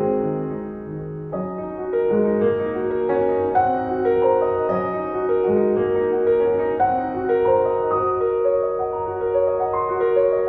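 Slow, gentle background piano music, a run of single held notes over a soft accompaniment.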